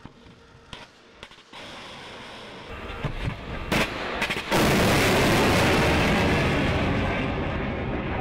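Cheongung Block I surface-to-air missile launching from its canister: a few sharp cracks a little past three seconds in, then from about four and a half seconds the loud, steady roar of the rocket motor, slowly fading as the missile climbs away.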